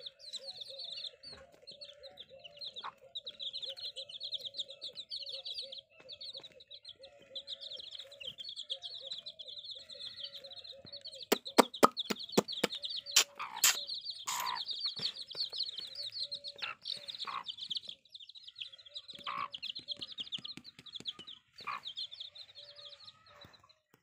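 A brood of newly hatched chicks peeping continuously in rapid high chirps, over the steady low clucking of their mother hen. About halfway through comes a short run of sharp clicks and knocks.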